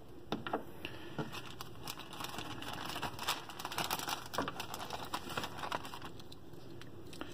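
Plastic zip-top bag crinkling and rustling as a hand rummages in it, with scattered light clicks and knocks.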